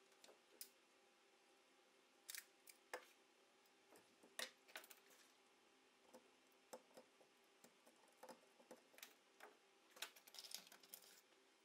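Faint, scattered clicks and knocks of small metal shotgun parts and a screwdriver being handled on a wooden workbench during disassembly, with a busier run of clicks about ten seconds in.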